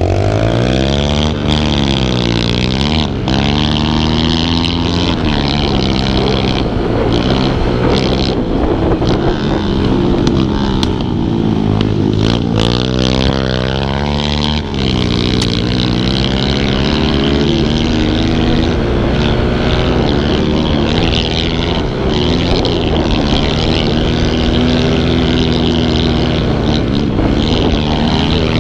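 Kawasaki KLX110's small single-cylinder four-stroke engine being ridden hard, revving up and easing off again and again, its pitch climbing through each gear and dropping at shifts and corners.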